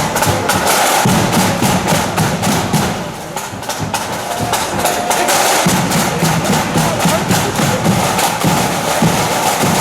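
Marching flute band playing, with snare drums beating a rapid rhythm over a bass drum. The drumming eases briefly around three seconds in and comes back in full a couple of seconds later.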